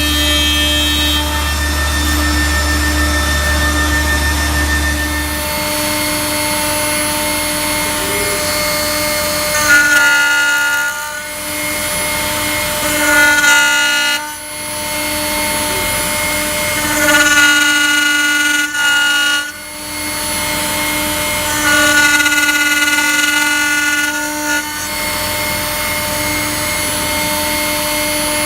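Rye MG2400 CNC router running and machining with a tungsten-carbide-tipped cutter: a steady whine, with four stretches of a higher whine, each a second or two long, about ten, thirteen, seventeen and twenty-two seconds in.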